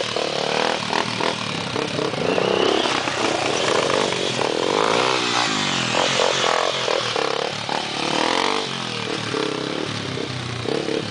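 Dirt bike engines running and revving, the nearest a red Honda XR250 Tornado, a single-cylinder four-stroke. The engine note rises and falls in pitch, most clearly about halfway through.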